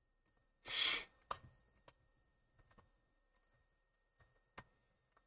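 A short breath out about a second in, then a few faint, scattered clicks from working a computer.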